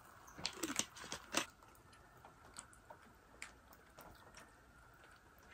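A quick cluster of crackling clicks from a plastic sparkling-water bottle being handled and set down after pouring, followed by a few faint scattered ticks.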